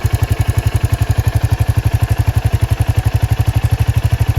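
Royal Enfield Hunter 350's single-cylinder engine running steadily, with an even exhaust beat of about eleven pulses a second. Over it is the light tick-tick noise these engines develop, which the owner puts down to the timing chain.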